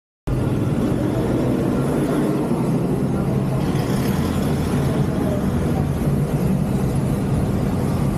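Roadside street traffic with a motor vehicle engine running steadily, a low even hum under the traffic noise, cutting in abruptly just after the start.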